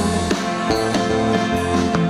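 Live rock band playing the instrumental bars between two sung lines: electric guitar and bass chords over a steady drum-kit beat, with no singing.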